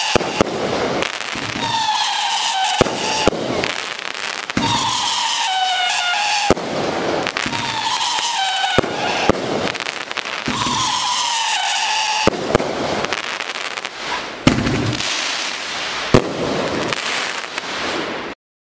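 A 500-gram, 29-shot consumer firework cake (Doremi DNF5107 Beguiler) firing shot after shot, with sharp bangs every second or two, falling whistles, and crackle between the bursts. The sound cuts off suddenly near the end.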